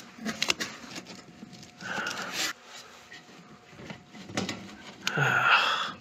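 A man breathing out heavily near the microphone, twice, the second breath louder and with a low voiced edge, like a sigh or grunt. Small clicks and taps come from a hand handling the heater-element wire terminals.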